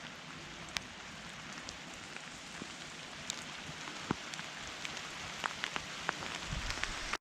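Rain falling, a steady hiss with separate drops ticking here and there, growing a little louder toward the end.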